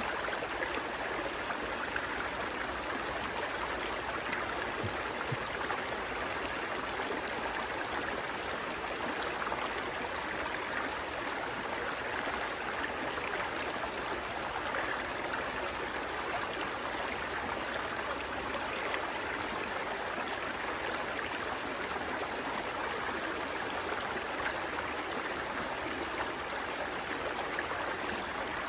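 Flowing water running steadily, a continuous even rush with no breaks or changes.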